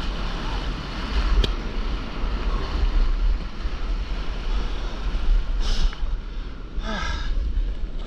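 Wind buffeting the camera's microphone over the steady hiss and rush of whitewash foam around a stand-up paddleboard riding a broken wave into the shallows.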